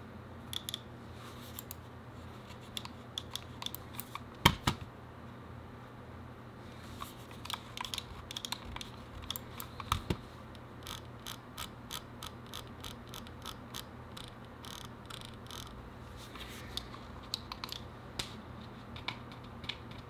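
Razer Basilisk Ultimate wireless gaming mouse being clicked for a sound test: an uneven series of sharp clicks. The loudest is a pair about four and a half seconds in, with a busier run of clicks in the middle.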